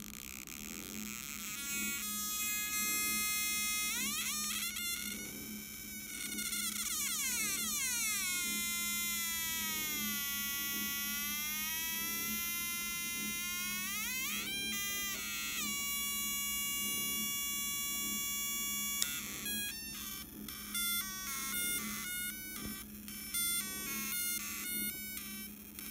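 Atari Punk Console, a homemade 555-timer synthesizer, buzzing harsh square-wave tones through its small onboard speaker. The pitch sweeps down and back up as its knobs are turned, then holds steady, and for the last several seconds the sound breaks into short, choppy notes of changing pitch.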